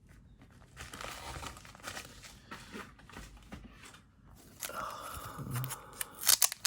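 Crinkling and rustling of trading cards and their packaging being handled, with a few sharp clicks near the end.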